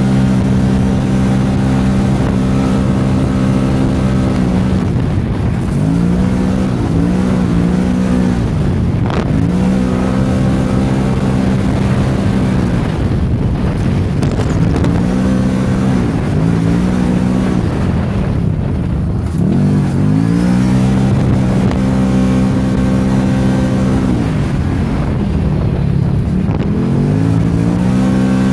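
Stock Can-Am Maverick side-by-side engine running hard, heard from the cab. Its note dips and climbs back several times as the throttle is eased and reapplied, over a steady rush of wind and trail noise.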